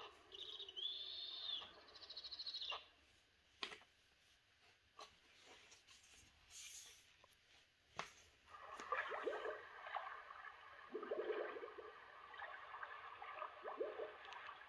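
An Usborne sound book's small speaker plays a chirping, squeaking snowy owl call for nearly three seconds. After a page rustle and a button click, it plays a splashing, gurgling underwater sound effect for narwhals from about eight seconds in.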